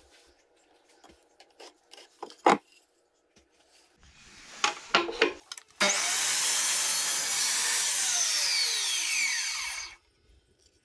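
Bosch mitre saw running and cutting a wooden strip for about four seconds, then its blade winding down with a falling whine and stopping. Before it, light clicks and knocks of the wood being handled.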